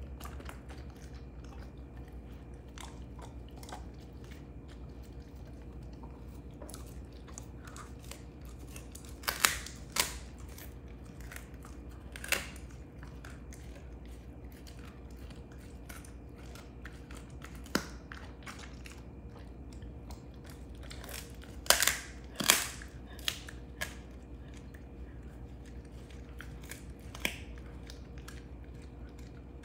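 Belgian Malinois chewing a beef rib bone: irregular cracks and crunches, with louder clusters about nine seconds in and again about twenty-two seconds in.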